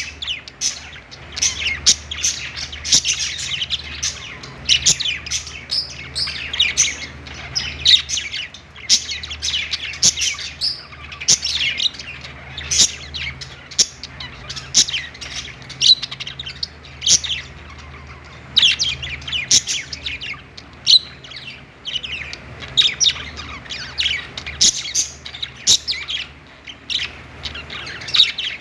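Budgerigars chirping and warbling, a busy run of quick, irregular chirps with occasional squawks.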